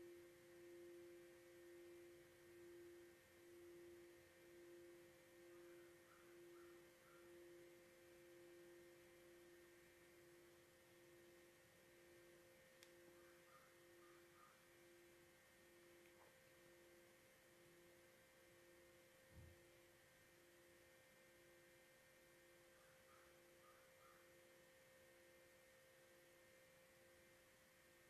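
Faint lingering ringing tone of a sound-healing instrument dying away, with a slow pulsing of about once a second that fades over the first several seconds. A quieter higher tone rings steadily above it.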